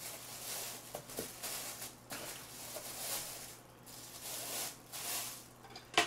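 Thin plastic bag rustling and crinkling in a series of bursts as it is pulled off a plastic food container, with a sharp tap near the end.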